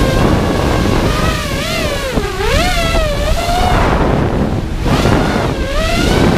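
Racing quadcopter's EMAX RS2205 2300KV brushless motors and propellers whining, the pitch rising and falling with each throttle change, over heavy wind rush on the onboard GoPro microphone. The whine drops away about four seconds in, as on a throttle cut, and comes back near the end.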